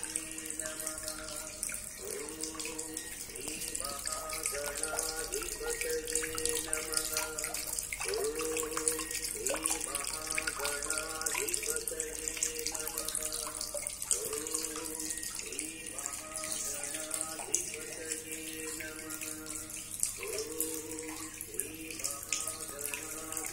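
Small tabletop fountain in a basin, water splashing steadily, with a short melody playing and repeating every couple of seconds.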